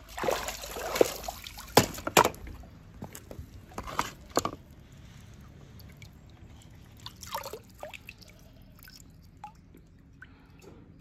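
Water sloshing and streaming off a mesh pool net as it comes out of a swimming pool, for about the first second and a half. A few sharp knocks follow around two and four seconds in, then softer wet handling sounds as a hand reaches into the net.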